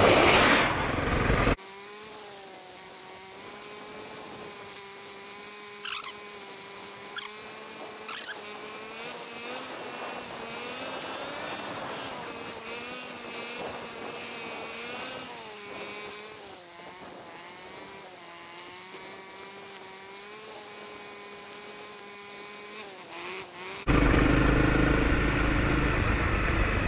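Honda CRF250L's single-cylinder four-stroke engine running under way on a dirt road, its pitch rising and falling gently with the throttle, with a few sharp clicks about six to eight seconds in. Loud wind rush over the microphone fills the first second and a half, drops off suddenly, and comes back near the end.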